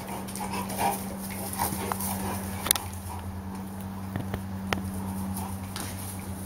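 A dog playing with a fawn, making small whimpering sounds and scuffling, over a steady low hum, with a few sharp clicks.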